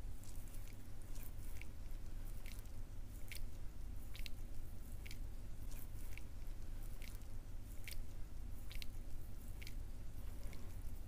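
Hands massaging oiled bare skin on the shoulders and neck, giving short sticky clicks and smacks of slippery skin about once or twice a second. They are picked up close on a clip-on microphone, over a low steady hum.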